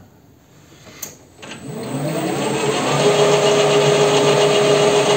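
WM210V benchtop metal lathe switched on: a click about a second in, then the motor spins up over a second or so and settles into a steady run with a whining tone.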